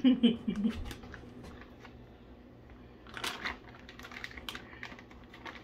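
Plastic candy pouch of Skittles Gummies crinkling and rustling as it is handled, loudest about three seconds in, with scattered small crackles. A short loud vocal sound comes right at the start.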